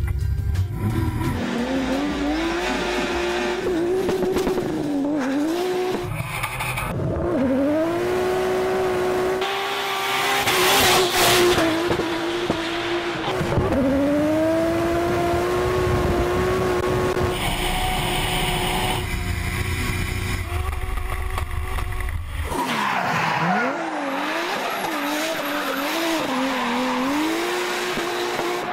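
Toyota Supra drift car running hard, its engine note holding high, then dropping sharply and climbing again several times as it shifts and lifts, with tyres squealing.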